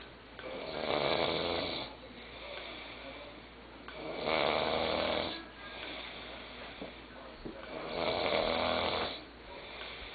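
A sleeping boy snoring with his mouth open: three loud, drawn-out snores about four seconds apart, each lasting over a second, with quieter breathing between them.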